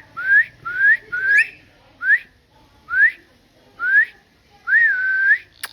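A pet parrot whistling: a run of about nine short rising whistles, the last one longer, dipping and then held.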